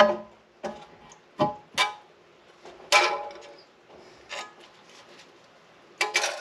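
Sharp knocks and clanks with brief ringing as a Nissan 350Z's upper intake plenum is worked free and lifted off the engine, coming irregularly with a quick cluster of three near the end.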